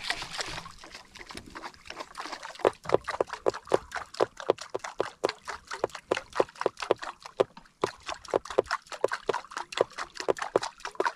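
Small waves lapping and slapping against the wooden hull of an outrigger canoe: a quick, irregular run of small plops and slaps, several a second, starting about two seconds in.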